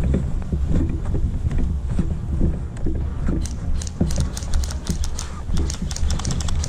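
Running footsteps on grass, thudding about twice a second, with wind buffeting the microphone. A quick run of sharp clicks starts about halfway through.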